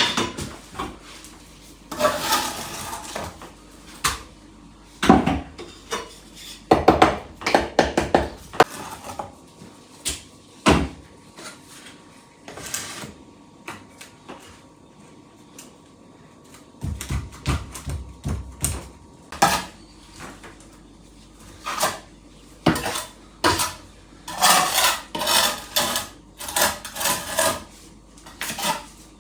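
Pots, lids and metal utensils being handled: irregular clinks, knocks and short scrapes of metal and crockery, busiest in two bursts.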